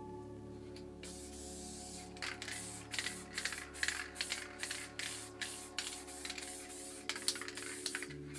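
Montana White aerosol spray paint can with its stock medium cap, spraying in short, uneven bursts of hiss that begin about a second in. The bursts are the cap spitting paint, as it has been doing.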